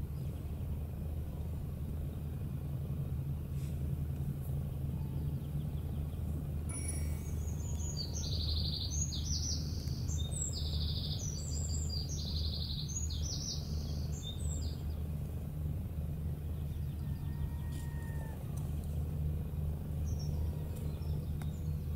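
A songbird sings a run of short, quick chirping phrases from about a third of the way in until about two-thirds through, over a steady low outdoor rumble.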